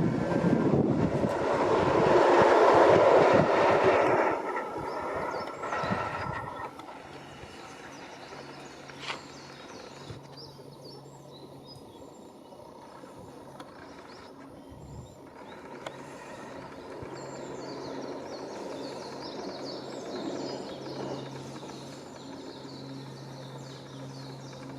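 Electric train on the JR Hanwa Line passing close by at a level crossing, loudest about three seconds in and dying away by about six seconds in. A faint steady low hum and weak high chirps remain after it has gone.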